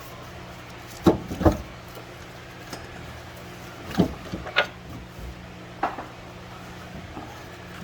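A handful of sharp knocks and clunks of hard parts or tools being handled, two close together about a second in and two more around four seconds in, over a steady low hum.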